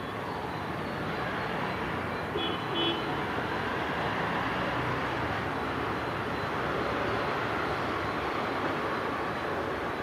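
Train running noise from an electric locomotive-hauled express, swelling a little over the first few seconds, with two short horn toots in quick succession about two and a half seconds in.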